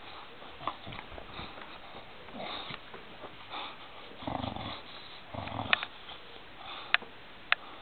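A dog chewing and gnawing on a sandal, with sniffing, irregular soft chewing noises and three sharp clicks in the last two seconds.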